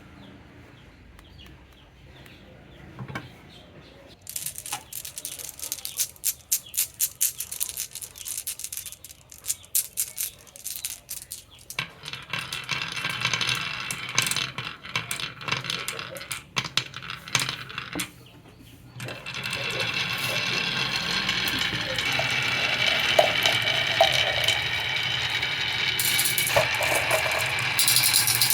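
Marbles rolling and clacking down wooden HABA marble-run slopes: scattered sharp clicks start about four seconds in, thicken into a rattle, and become a loud continuous rolling clatter in the second half.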